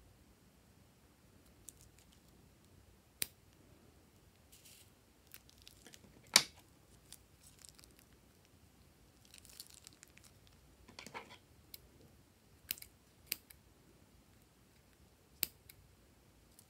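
A filled plastic piping bag being handled and squeezed: soft crinkling of the plastic and a few scattered sharp clicks, the loudest about six seconds in. Near the end, scissors snip at the bag's tip.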